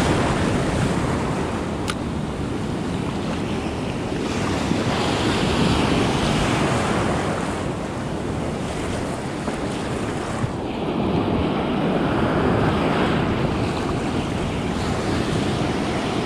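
Ocean surf breaking and washing around the legs of a wader standing in it, with wind blowing on the microphone. A single brief click about two seconds in.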